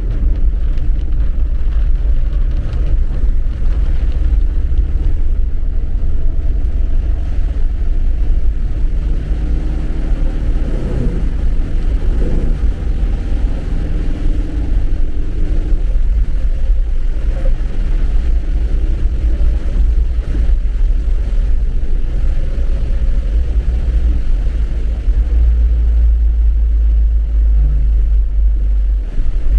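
Car driving on a wet road, heard from inside the cabin: a loud, steady low rumble of engine and road noise, with faint engine tones briefly rising and falling in pitch around the middle.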